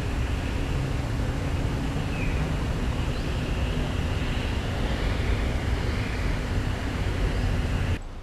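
Wind buffeting the microphone in open air: a steady low rushing noise that cuts off suddenly near the end.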